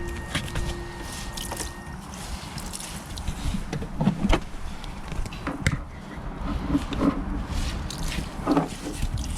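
Scattered irregular knocks and clicks over a low rumble, with a held music note fading out in the first two seconds.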